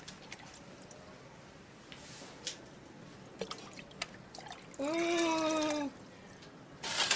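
Water dripping and trickling in a kitchen sink, with small clicks and taps. About five seconds in, a louder pitched sound with a slightly arching tone lasts about a second.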